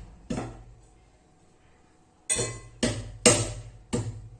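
Ginger being pounded with a pestle in a mortar to crush out its juice: sharp knocks about twice a second, with one early knock, a pause of about a second and a half, then steady pounding again.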